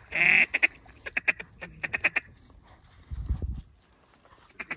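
Duck quacking: one long loud quack at the start, then runs of quick, evenly spaced quacks. A brief low rumble comes a little past three seconds in.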